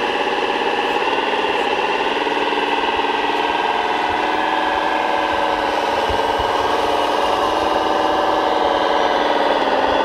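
Radio-controlled hydraulic construction models running: a steady mechanical hum and whine made of several held tones, dipping slightly in pitch near the end.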